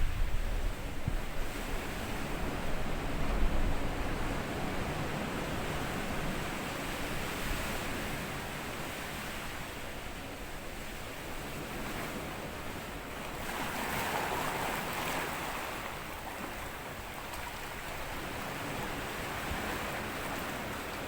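Small sea waves washing onto a sandy beach, a steady wash of surf with one louder wave breaking and running up about two-thirds of the way through. Low buffets of wind on the microphone in the first few seconds.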